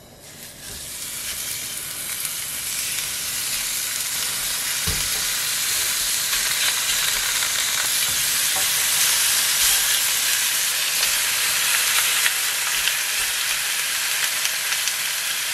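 Slices of raw pork belly and pork neck sizzling as they are laid on a hot ridged grill pan. The sizzle builds over the first couple of seconds and then holds steady, with a single soft knock about five seconds in.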